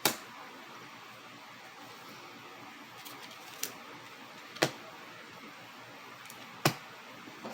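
Tarot cards being laid down one at a time on a table: three sharp slaps, at the very start, about four and a half seconds in and near the end, with a few fainter clicks between, over faint room noise.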